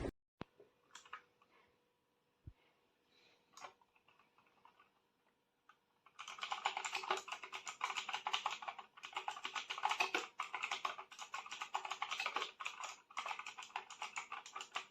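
Leaven K550 mechanical keyboard with clicky blue switches being typed on: a few scattered keystrokes, then fast continuous typing from about six seconds in, with a few short pauses.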